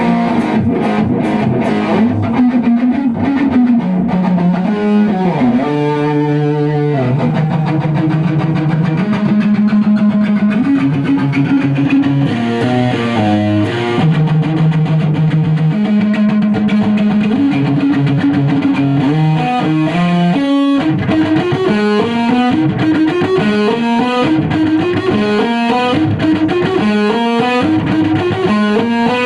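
Electric guitar with distortion playing held, changing notes, with a short break about two-thirds through, followed by a run of repeated rising slides.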